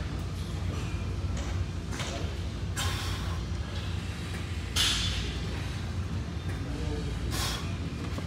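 A lifter's sharp, forceful breaths, three times about two to two and a half seconds apart, during a set of barbell back squats, over a steady low hum of gym fans.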